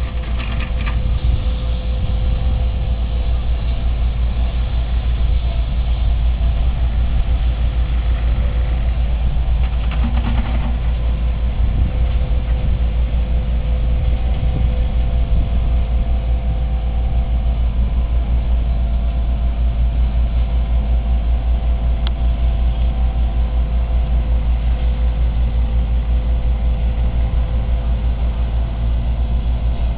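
Road roller's engine running steadily with a constant low rumble.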